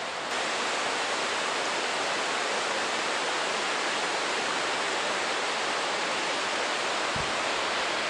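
Water rushing over rocks in a forest stream and small waterfall, a steady hiss that gets a little louder just after the start.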